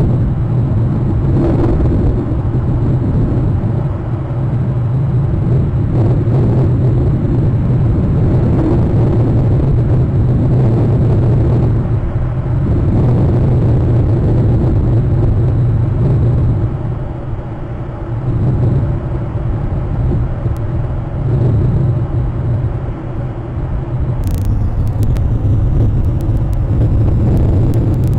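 A steady low rumble on an outdoor microphone, wavering in level with a few brief dips, and a few faint clicks near the end.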